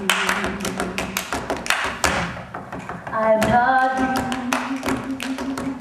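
Quick tap-shoe taps striking a stage floor, over a voice holding long sung notes: one note ends about a second in and another begins just after three seconds.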